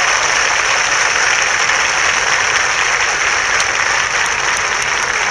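A crowd of football supporters applauding, a dense and steady clapping.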